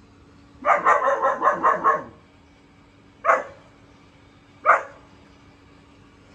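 German shepherd puppy, about four months old, barking: a quick run of about eight barks about a second in, then two single barks a second and a half apart.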